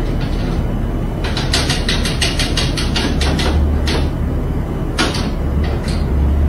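A rapid run of sharp plastic taps, about five a second, then a few single taps near the end, over a steady low hum: a cat's paws batting at the casing of a wall-mounted air conditioner.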